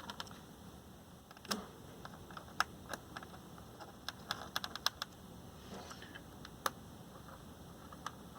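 Irregular light clicks and taps, some in quick clusters, with no steady rhythm.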